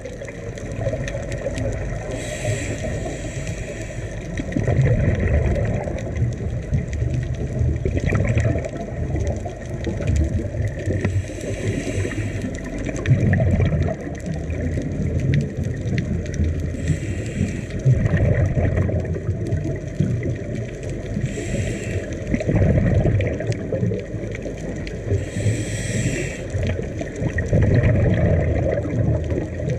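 Underwater water noise picked up through an action camera's waterproof housing: a steady low rushing, with a brief hiss every four to five seconds.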